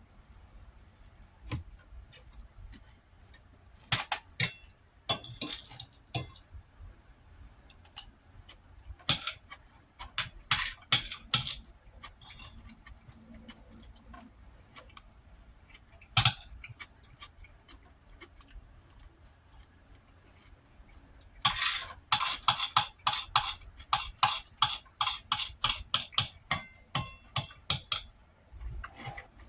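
Metal utensil clinking and scraping against a plate or bowl while eating: scattered clinks through the first half, then a quick run of many clinks, about three a second, in the last third.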